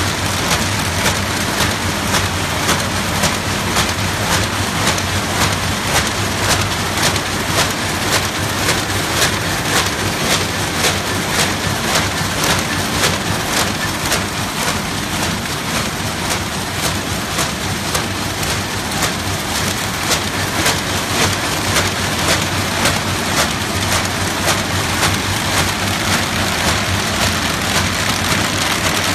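RZFD-450 roll-fed kraft paper bag machine running at about 110 bags a minute: a dense, steady mechanical clatter with a regular beat of just under two strokes a second.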